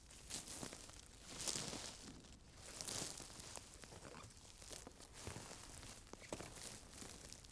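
Footsteps crunching through dry leaves on a forest floor at an unhurried pace, the loudest steps about one and a half and three seconds in.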